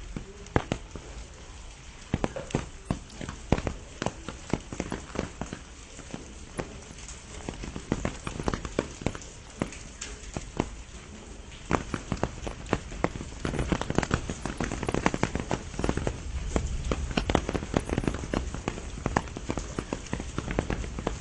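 Rain falling in a steady hiss, with many irregular sharp taps of large drops landing close by. The taps grow denser and louder about halfway through.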